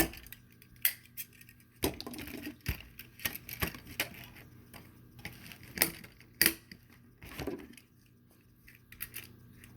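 Steel handcuffs clicking and clinking as they are worked off a wrist without the key: a handful of sharp, irregular metal clicks with quiet between them.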